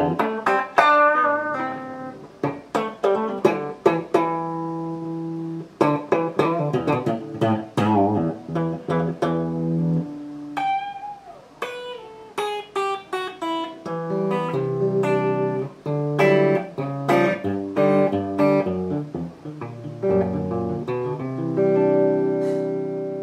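Fender Japan TL-69 electric guitar played through a combo amp: a run of picked single notes and chords, with one note bent in pitch about ten seconds in. It ends on a chord left to ring and slowly fade.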